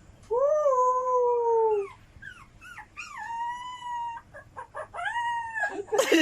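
A dog howling: a long, slightly falling howl, a few short yelps, a second long howl, then more short calls.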